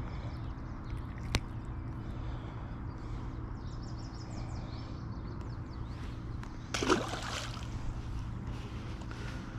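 Steady low rumble with a single sharp click about a second in, and a short splash of water about seven seconds in.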